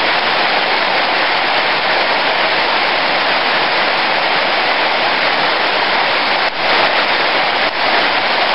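Hard rain falling steadily, a loud, even rushing hiss.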